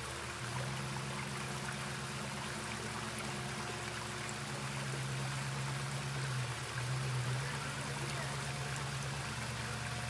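Water rushing and trickling down a rocky waterfall, with an off-road vehicle's engine running at low revs underneath, swelling briefly about two-thirds of the way through.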